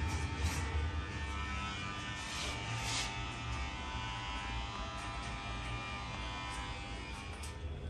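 Electric hair clippers buzzing steadily as they trim a boy's hair around the ears and neck.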